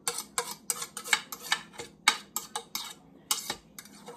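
Utensil scraping and tapping against a ceramic plate, scraping mashed banana off into a mixing bowl: a quick, irregular run of short clicks and scrapes, about three a second.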